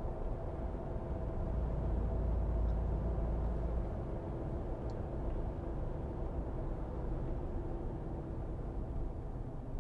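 Road noise inside the cabin of a 2022 Ram TRX cruising on smooth pavement: a steady low rumble from its large tyres with an even engine drone underneath.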